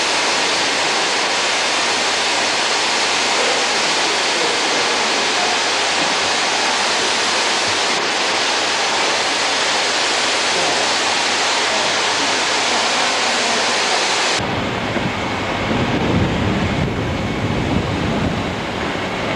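A steady, loud hiss. About fourteen seconds in it cuts abruptly to a rough low rumble of wind buffeting the microphone.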